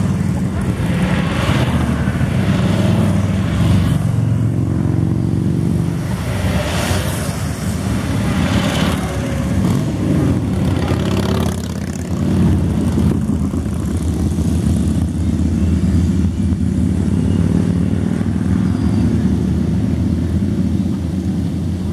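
A string of cruiser motorcycles riding past one after another, their engines running steadily, the sound swelling and fading as each one goes by.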